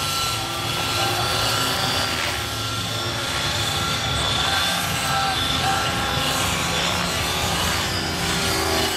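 Outrage Velocity 50 N2 RC helicopter's YS 56 nitro glow engine running at high revs with the rotor blades whirring, as the helicopter makes low warm-up passes. The engine note holds steady, shifting slightly in pitch near the end.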